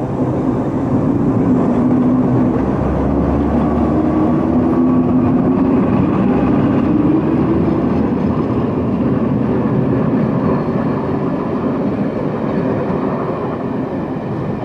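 Train of Dreadnought carriages hauled by a Metropolitan Vickers electric locomotive, running steadily along the track with a low motor hum, easing slightly near the end.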